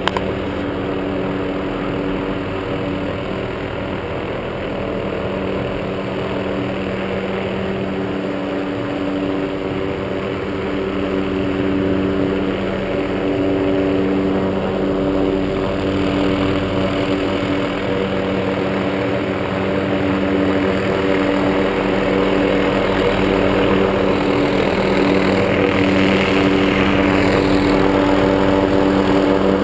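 Light helicopter flying a sock line: steady engine and rotor sound with a constant hum, growing gradually louder as it approaches.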